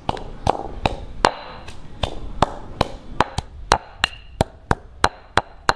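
Stone pestle pounding green curry paste ingredients (shallots, garlic, lemongrass, kaffir lime peel) in a stone mortar: a steady run of sharp strikes, about three a second.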